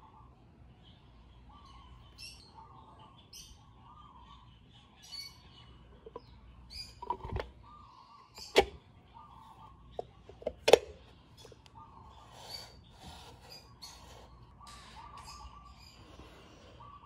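Birds chirping on and off, with a few sharp clicks and knocks between about seven and eleven seconds in, two of them loud, as the plastic-and-metal front brake panel of a Honda Elite scooter is handled and seated onto the wheel hub.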